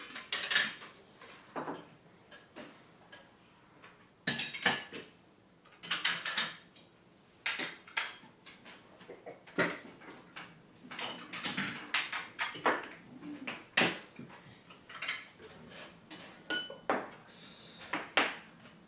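Tableware clinking: tea glasses set down on saucers and cutlery knocking on plates, in many short, irregular clinks and knocks, a few with a brief ring.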